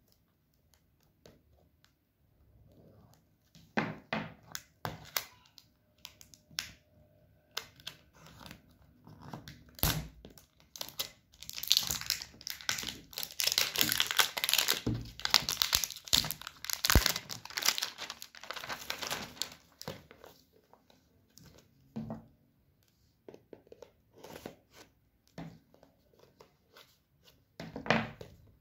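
Clear plastic shrink-wrap on a smartphone box being slit with a knife, then torn and crinkled off by hand. Scattered scrapes and taps at first, continuous crackling and tearing through the middle, then light taps and handling of the box.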